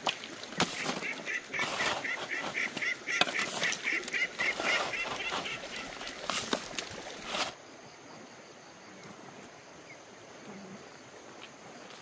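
Ducks calling in a rapid run of quacks, about four a second. About halfway through the sound cuts off suddenly, leaving only a faint steady background.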